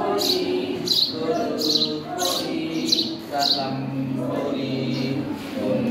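Unaccompanied singing of an Islamic devotional song: a man's voice leads, with a group of voices singing along, and holds long steady notes in the second half.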